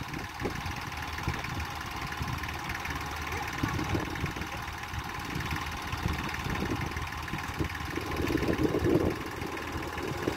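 Iseki TS2510 tractor's diesel engine running with a rapid knocking beat while the tractor, bogged in mud at a collapsed ditch, tries to climb out; the engine gets louder for about a second near eight seconds in.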